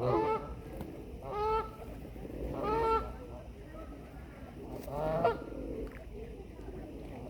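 Waterfowl calling at a lake feeding spot: four loud pitched calls a second or two apart, with a quieter stretch in the last two seconds.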